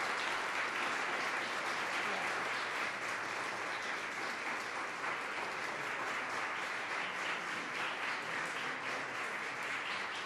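Audience applauding steadily, a dense patter of many people's hand claps.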